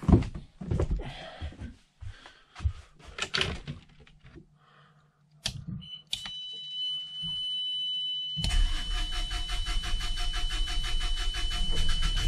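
A few knocks and footsteps, then a switch click, and about six seconds in a steady high tone starts. At about eight seconds the boat's generator engine starts and runs with a fast, even pulse, drawing pink antifreeze from the winterization tank through its raw-water cooling.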